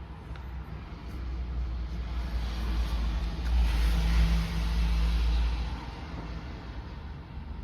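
A road vehicle driving past: a low engine and tyre rumble that builds over a few seconds, peaks near the middle, then fades away.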